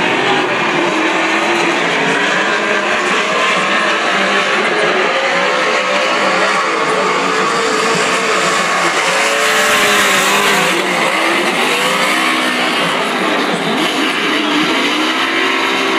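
Formula D drift cars at full throttle through a corner, their engines revving up and down over and over, with tires screeching as they slide.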